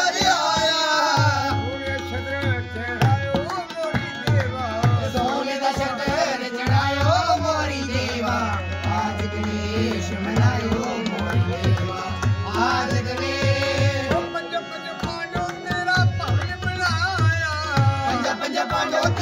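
Devotional folk song (bhajan): singing to a harmonium's held reed chords, with tabla drums keeping a steady beat.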